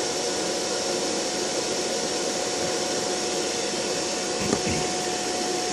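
Loud electric fan running steadily: an even rushing noise with a faint steady tone. One short knock about four and a half seconds in.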